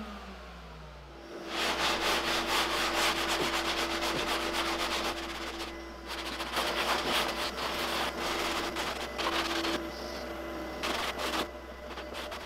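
Hand sanding the fiberglassed epoxy inside of a wooden strip-built kayak with a vacuum-connected sanding pad: quick, rough rubbing strokes that start about a second and a half in, over the steady hum of the dust extraction. Just before the sanding starts, a falling whine dies away.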